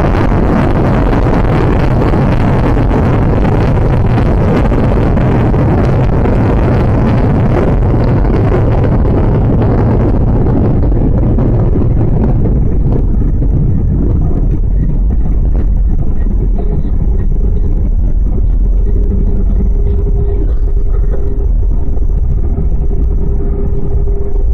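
Jet airliner cabin noise during the landing: a loud, steady rumble with a hiss. About ten seconds in, the hiss dies away as the aircraft slows, leaving a lower rumble and a steady hum.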